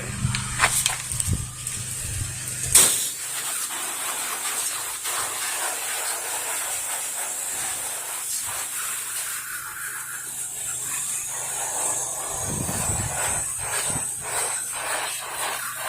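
Pressure washer spray from a wand nozzle, a steady high hiss of water jetting against the house. A low rumble under it for the first three seconds stops with a single sharp knock.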